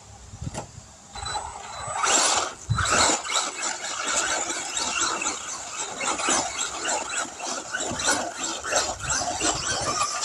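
An Arrma Typhon 3S brushless RC buggy driving hard, its tires spinning and scrabbling on the ground as it does donuts. The sound starts about a second in and is loud and gritty from about two seconds in.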